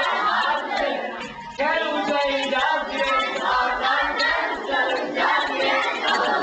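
A class of schoolchildren singing together in chorus, without instruments, a science lesson set to song.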